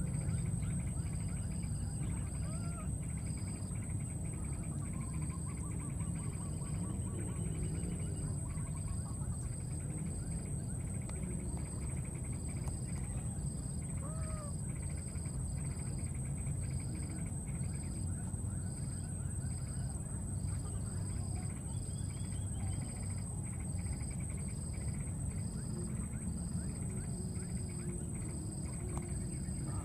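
Steady insect chorus: one insect makes a continuous high buzz while another pulses about once a second, over a constant low outdoor rumble. A baby monkey gives two faint, short rising-and-falling squeaks, about 3 s in and about 14 s in.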